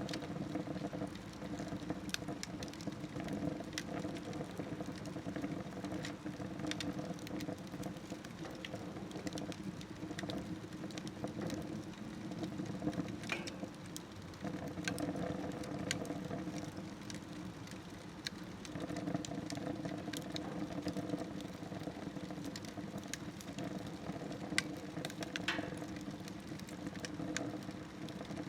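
Wood fire burning in a smokeless stove: scattered crackles and pops over a steady low hum that swells and fades.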